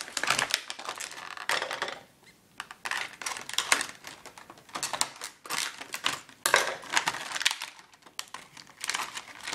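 Plastic packaging and a USB iPod cable being handled: irregular crinkling, rustling and clicking of stiff plastic, with a couple of short lulls.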